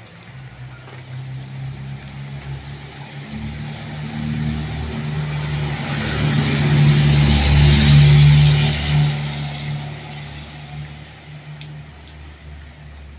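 A motor vehicle passing by on a wet road: its engine hum and tyre hiss swell to a peak about eight seconds in, then fade away. Steady rain hiss lies underneath.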